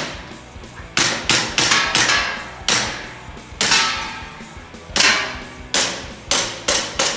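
Gas blowback gel blaster pistol firing a rapid string of single shots, about a dozen at uneven spacing, each a sharp crack that rings out briefly.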